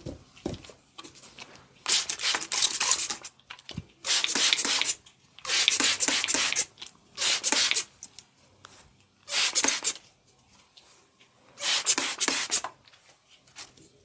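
Massage strokes: hands rubbing briskly over the body in six separate passes, each about a second long, with short pauses between them.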